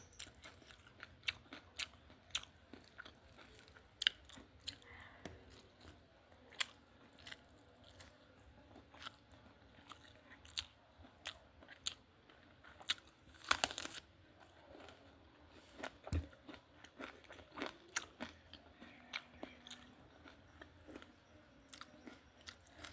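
Close-miked eating: a person biting and chewing crunchy food, with many short, sharp crunches throughout and the loudest cluster about 13 to 14 seconds in.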